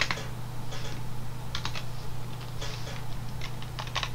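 Typing on a computer keyboard: keystrokes clicking in short, irregular runs, with a steady low hum underneath.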